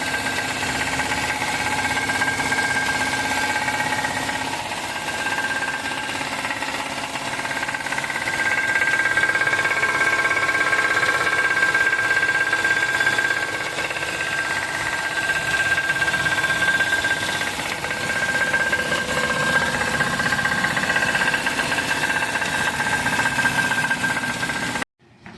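Car engine running with a steady rapid knock from the bottom end, which the uploader puts down to a worn connecting-rod bearing. It cuts off suddenly near the end.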